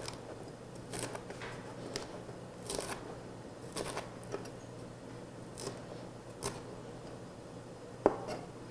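Chef's knife slicing a halved red chili pepper into thin strips on a plastic cutting board: soft, irregular taps of the blade through the pepper onto the board.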